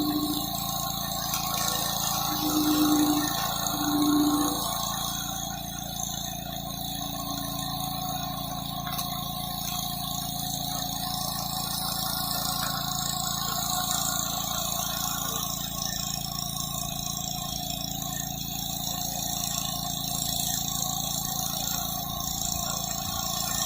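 Gas-engine pressure washer running steadily, its engine drone under the hiss of the high-pressure water spray on concrete. Two brief low hums rise over it about three and four seconds in.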